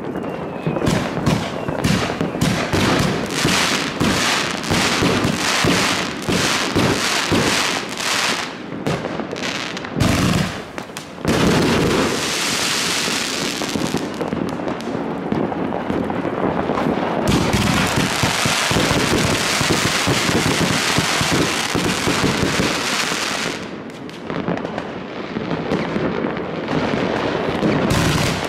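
Consumer firework battery (cake) firing its shots in quick succession, about two sharp reports a second, for the first nine seconds. A heavier bang comes about ten seconds in, followed by a long steady crackling hiss from the bursting effects.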